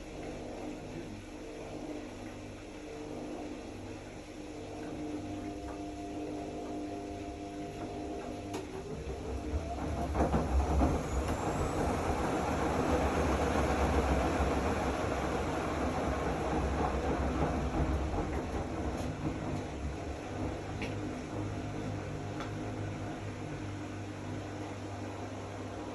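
Zanussi AquaCycle 500 FA 623 washing machine running with a steady hum. About nine seconds in, a short rising whine is followed by a louder rumble and swishing noise that build up, then slowly ease off.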